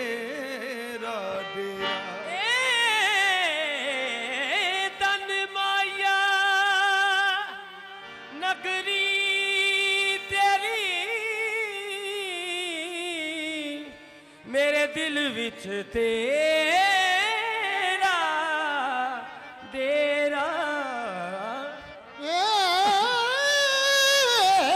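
Qawwali singing: a male lead voice holds long, wavering, ornamented notes that glide up and down, over a steady harmonium. The voice breaks off briefly three times between phrases.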